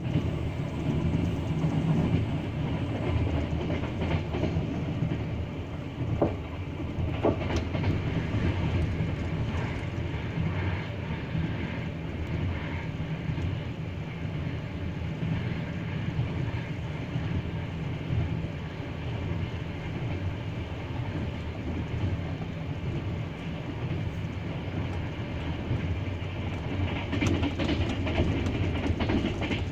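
Double-decker passenger train behind an EP20 electric locomotive running at speed: a steady rumble of the running gear, with wheels knocking over rail joints a few times and a louder stretch near the end.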